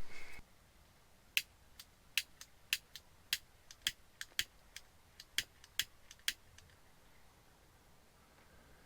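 A series of sharp, thin clicks at irregular spacing, about fifteen over five seconds, then they stop.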